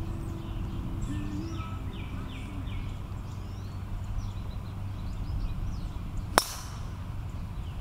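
A single sharp crack of a driver striking a golf ball off the tee, about six seconds in.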